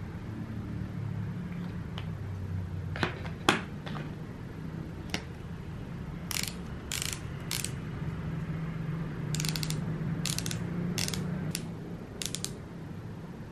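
Plastic twist-up lip crayon being twisted, its mechanism giving bunches of rapid ratcheting clicks from about six seconds in, after a few single sharp clicks as the crayon and cap are handled.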